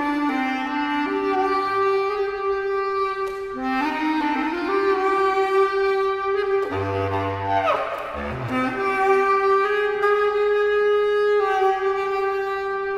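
Solo bass clarinet playing long held notes that step from pitch to pitch. About halfway through comes a brief noisier, breathier passage with a low note and a falling glide, before it settles back into sustained tones.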